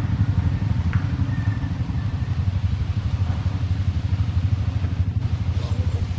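A small engine running steadily, a low rumble with a fast flutter.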